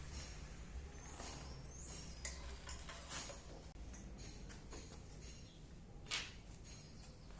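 Faint clinks and scrapes of metal parts being handled, with one sharper clink about six seconds in, over a low steady hum.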